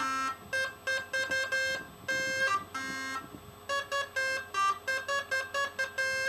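Homemade synthesizer built from a salvaged function generator, keyed from a QWERTY computer keyboard, playing a quick run of short buzzy notes through a Memphis car speaker. The notes come several a second and keep returning to the same few pitches, with a brief gap about three seconds in.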